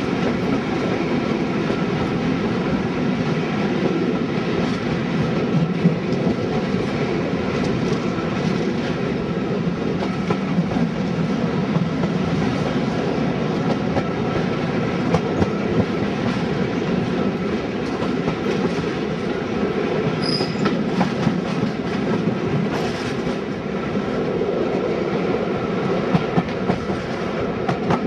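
Diesel-hauled passenger train running along, heard from an open coach window: a steady rumble of wheels with clicks over rail joints and points, under a faint engine drone. There is a short high squeak about twenty seconds in.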